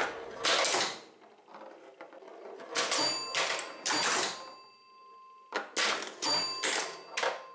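Bally 4 Queens electromechanical pinball machine in play: bursts of clattering from its solenoids, relays and stepping score reels, in three clusters. After the later two a bell tone rings on.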